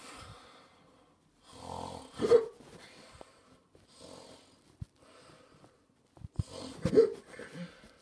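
A person voicing snoring for a sleeping plush character, in slow breathy snores, broken twice by a sharp loud hiccup: about two seconds in and again near the end.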